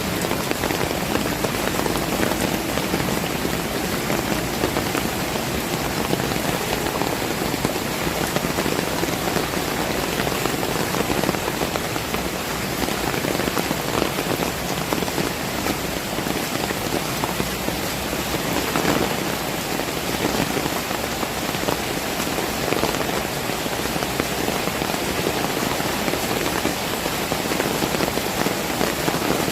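Heavy rain falling steadily on surfaces, a dense, even patter that doesn't let up.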